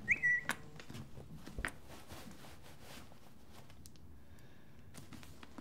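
Mobile phone alert tone: a short electronic beep that quickly rises and then holds for about half a second, followed by a few faint clicks and quiet room tone.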